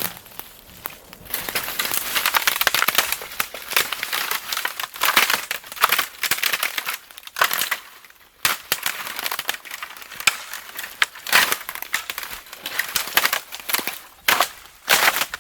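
Dry bamboo leaves and stalks crackling and rustling in irregular crunching surges, with a brief lull a little past halfway.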